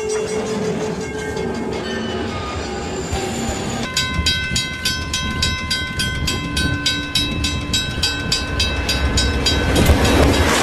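A train running through snow with a heavy rumble, its horn sounding and falling in pitch as it passes. About four seconds in the sound cuts to steady horn-like tones over the rumble, with a fast, regular ringing of about three strikes a second.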